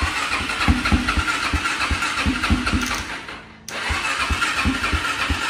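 ATV engine just catching and running roughly, firing in irregular, uneven pops, after its clogged fuel filter and dirty gas tank were cleaned out. The sound dips briefly about three and a half seconds in, then picks up again.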